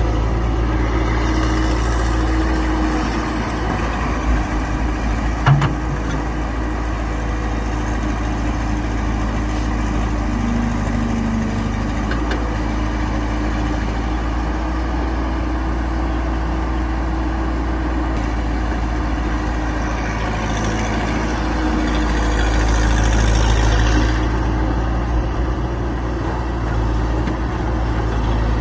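Excavator's diesel engine running steadily, with a couple of short knocks about five seconds in. It grows louder for a few seconds late on, as if working harder.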